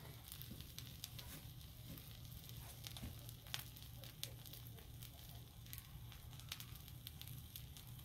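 Faint, sparse crackling and ticking from a lit disposable grill's charcoal burning, over a low steady hum.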